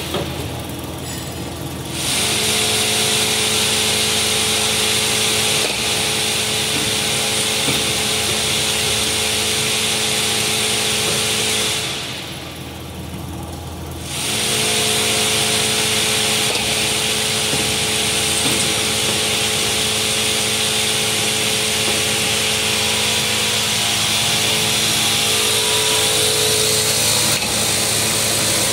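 Coil nail collating machine running: a steady mechanical whir with several constant hum tones under a strong high hiss. Twice the hiss drops away for about two seconds, at the very start and again about twelve seconds in.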